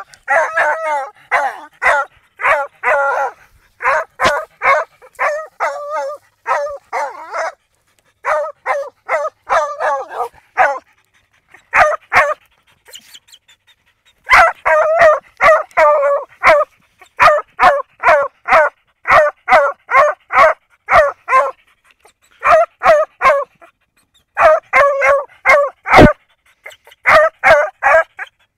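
Mixed-breed dog barking rapidly and excitedly at an armadillo burrow, marking the quarry in the hole. The barks come several a second in runs of a few seconds, broken by short pauses, the longest about halfway through.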